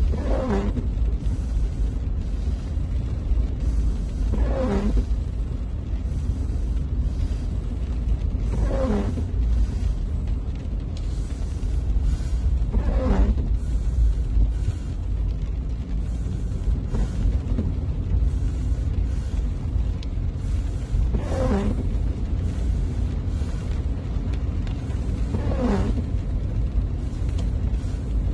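Steady low rumble from inside a car driving in heavy rain. A short squeak that falls in pitch repeats about every four seconds, which fits windshield wiper blades sweeping across wet glass.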